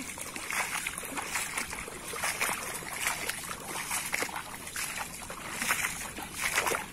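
Bare feet wading through shallow, weedy swamp water, a splashing, sloshing step roughly every second in a steady walking rhythm.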